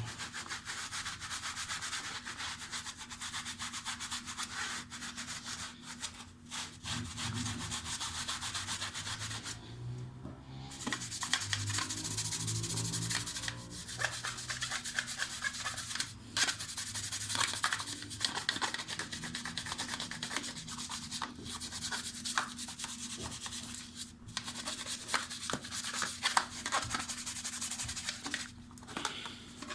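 Brisk scrubbing of a dishwasher part with detergent: a scratchy rubbing in quick strokes, going on with a few short breaks.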